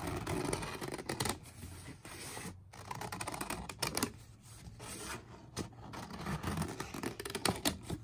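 Scissors cutting through a paper plate along a spiral line: a run of irregular snips and scrapes of paper.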